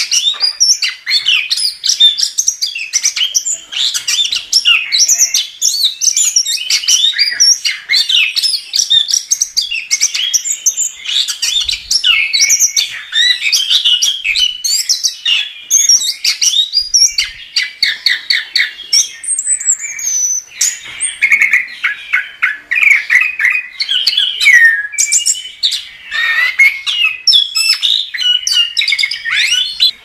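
Chestnut-capped thrush (anis kembang) singing nonstop: a fast, varied stream of chirps, trills and whistled glides with hardly a pause.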